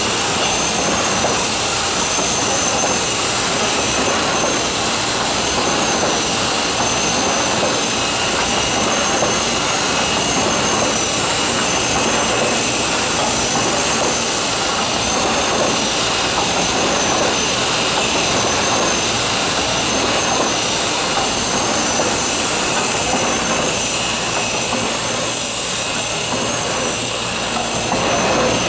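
1993 Sakurai SC 102 DX cylinder screen-printing press running at production speed: a loud, steady mechanical rushing hiss with a high, slightly wavering whine over it.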